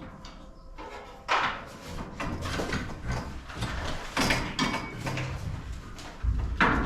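Knocks and clatter from work on a garage door's hardware, with a sharp knock about a second in and a heavier rumbling clatter near the end.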